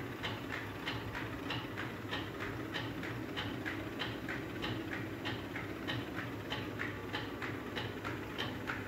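Grain mill running with a steady hum and a regular clacking, about three clicks a second.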